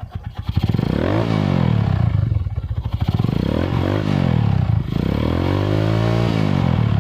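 Yamaha SZ's single-cylinder engine running through an aftermarket Vmax exhaust pipe fitted with a silencer. It idles with an even putter, then is revved up and let fall back three times, the pitch climbing and dropping with each blip.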